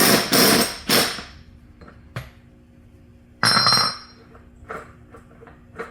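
Battery-powered impact wrench hammering in short bursts on the flywheel nut of a push mower's engine to break it loose: bursts in the first second or so, a sharp click about two seconds in, then another burst about three and a half seconds in.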